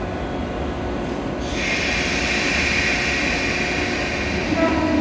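JR 117 series electric train standing at the platform before departure, its equipment running with a steady low hum. A steady hissing noise comes in about a second and a half in and carries on.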